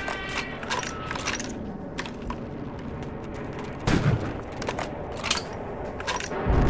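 Battle gunfire: a scatter of sharp rifle shots and cracks, with heavier, deeper bangs about four seconds in and again near the end, while a bolt-action rifle is fired from cover.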